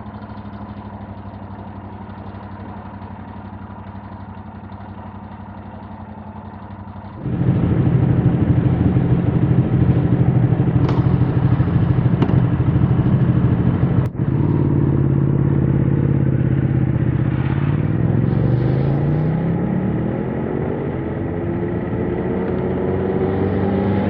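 2021 Yamaha MT-07's 689 cc parallel-twin engine through its stock exhaust, running low and steady, then getting much louder about seven seconds in as the throttle opens. There is a momentary cut around fourteen seconds, and near the end the engine note rises steadily in pitch as the bike accelerates.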